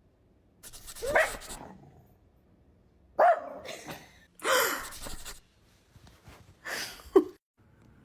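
A dog barking four times, the barks a second or two apart.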